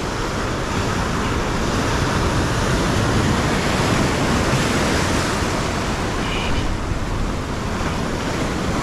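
Ocean surf washing onto the shore, a steady rush of water that builds slightly a few seconds in.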